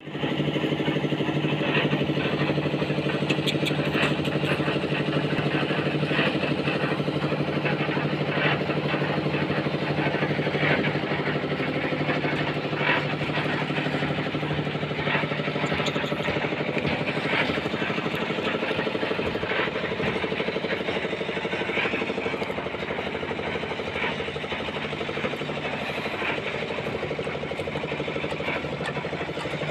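An engine running steadily at a constant speed with a low, even hum, with scattered short knocks of construction work over it.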